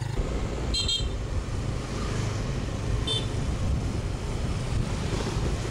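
Motor scooter running while riding, a steady noise mostly low in pitch. Two brief high-pitched chirps come about one second and three seconds in.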